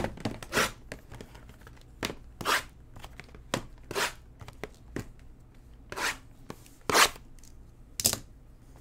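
Shrink-wrapped Tier One baseball card boxes being handled and stacked out of the case: about eight short plastic crinkles and swishes, a half to one second apart.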